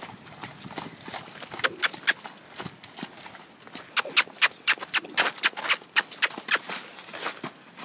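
Hoofbeats of a paint horse trotting over muddy, partly snowy ground: sharp strikes, scattered at first, then louder and quicker from about halfway in at roughly four a second.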